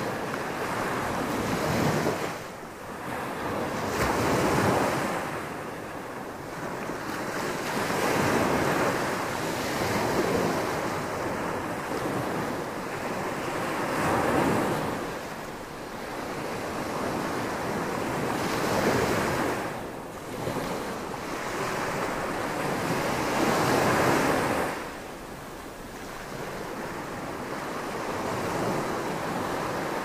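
Small ocean waves breaking and washing up a sandy beach. The surf swells and falls away every four to five seconds.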